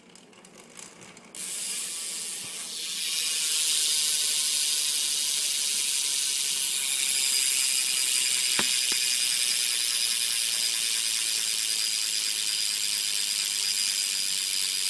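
BMX rear hub freewheeling as the back wheel spins, its pawls ratcheting in a fast, steady, high-pitched buzz that is really loud. It starts about a second and a half in after a few faint handling clicks, and there is one short knock partway through.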